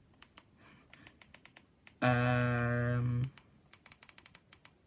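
Light, quick key or button clicks as menus are stepped through, with a steady buzzing tone of just over a second about two seconds in.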